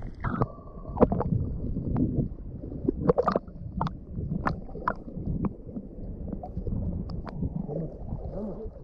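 Shallow seawater gurgling and sloshing against a half-submerged camera, with a steady low rumble and scattered short sharp splashes and clicks as hands and a large snapper move in the water.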